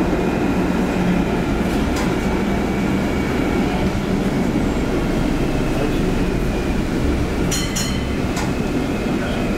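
A 1960 PCC tram running on its rails: a steady rolling rumble of wheels and running gear, with a few sharp clicks near the end.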